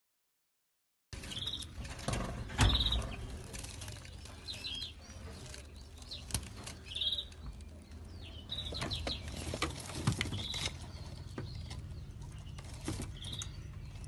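Small caged finches chirping, short high chirps every second or two, among knocks, clicks and wing flutters from the birds moving about the cage. The sound starts about a second in, and the loudest knock comes at about two and a half seconds.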